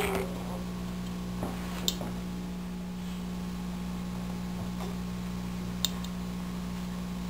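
Steady low background hum with two brief sharp clicks, about two seconds in and again about four seconds later.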